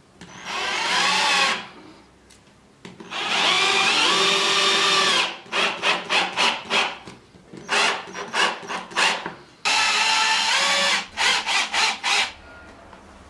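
Cordless drill-driver driving screws through steel angle brackets into melamine-faced chipboard. There are a few runs of a second or two, the motor's pitch climbing as each starts, and between them quick strings of short trigger blips as the screws are seated.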